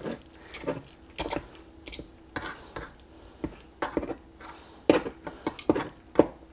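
Two metal forks shredding tender cooked pork shoulder on a plastic cutting board: irregular clicks and scrapes of the tines against the board.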